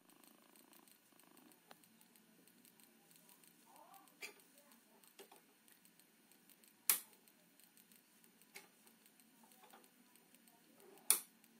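Ethernet cable's RJ45 plug being worked into a TP-Link network switch's port: a few light plastic clicks, then two sharp clicks about four seconds apart as the plug latches.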